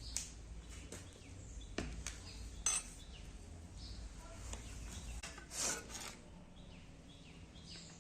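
Metal kitchen utensils and cooking vessels clinking and knocking a few separate times, the loudest a ringing clink about two and a half seconds in. Birds chirp faintly in the background.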